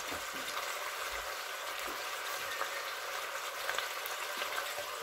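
Lamb pieces searing in oil in an open stainless-steel pressure cooker: a steady frying sizzle with faint crackles.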